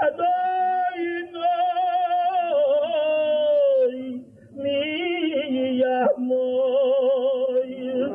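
A single male voice chanting a prayer melody unaccompanied, in long held notes with a wavering, ornamented pitch. It breaks off briefly about four seconds in and again at about six seconds.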